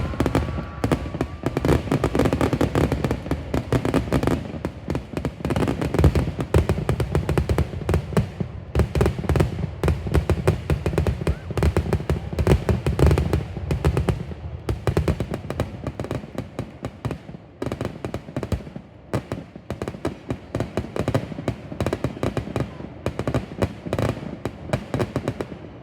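Fireworks finale: a dense barrage of firework shell bursts, many sharp bangs a second overlapping one another, thinning to more spaced-out bangs in the last ten seconds or so.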